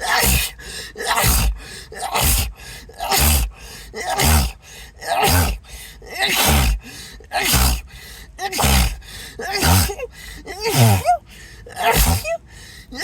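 A person sneezing in a rapid run, about a dozen sneezes roughly one a second, each a sharp gasp and a falling 'choo' in a fit that will not stop.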